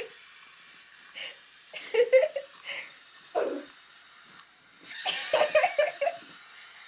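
People laughing and giggling in short bursts, with a quick run of laughs about five seconds in, over a steady background hiss.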